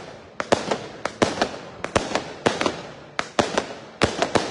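Fireworks bangs going off in a rapid, irregular string, several sharp cracks a second in clusters, each echoing briefly.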